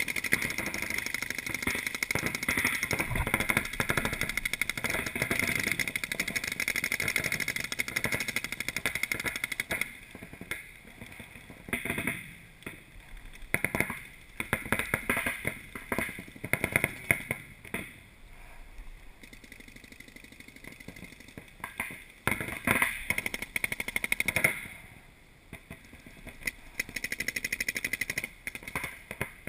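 Paintball markers firing rapid strings of shots: near-continuous fire for about the first ten seconds, then shorter bursts of fire separated by quieter gaps.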